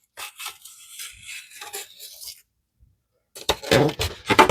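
Tough packing tape on a cardboard shipping crate being cut open: quiet scratchy rustling at first, a brief pause, then louder, rougher scraping strokes about three and a half seconds in.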